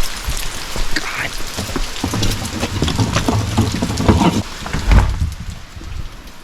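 Heavy rain falling steadily, with scattered knocks and a thud about five seconds in, after which the rain sound drops away.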